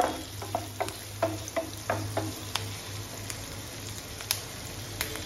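Sliced onions and green chillies frying in oil in a nonstick pan as a spatula stirs them, with a run of light taps and scrapes of the spatula on the pan, most of them in the first two and a half seconds.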